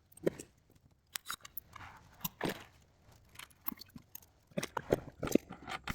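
Scattered short clicks and snips of hand work: the plastic air line being cut square and handled at the fittings.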